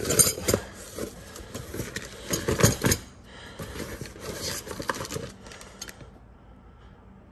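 Handling noise of things being moved around: rattling, clicking and knocking with some rustling, in busy stretches over the first six seconds, then quieter near the end.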